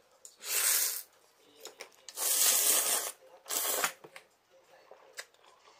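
Someone slurping soba noodles: three airy slurps, the middle one about a second long, followed by a few light clicks.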